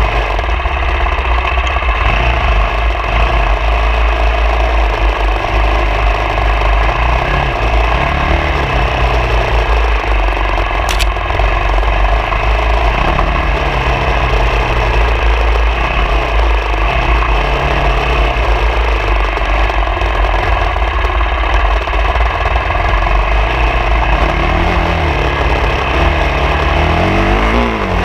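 Off-road motorcycle engine running as it is ridden, the revs rising and falling repeatedly with throttle changes, over a steady rush of noise.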